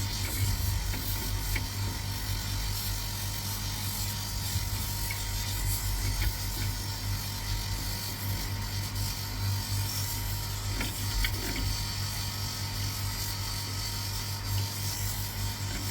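Bench polishing machine running steadily with a low motor hum, its buffing wheel polishing a No.100 shell fuze held against it.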